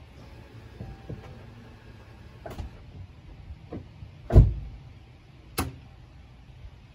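Five scattered knocks over a quiet background, the loudest a deep thud about four and a half seconds in.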